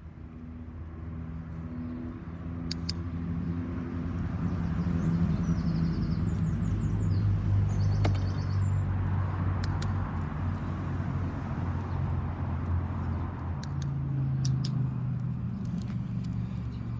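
A motor vehicle's engine running, growing louder over the first several seconds and then slowly easing off.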